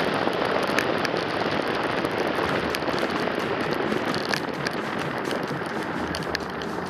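Steady rushing noise of air and wet road on a bonnet-mounted camera's microphone as the car moves on a rain-soaked road, with scattered sharp crackles.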